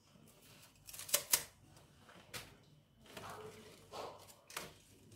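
Small kitchen knife cutting through spinach root crowns and stems: a few sharp snaps and cuts, with the leaves rustling as the bunches are handled.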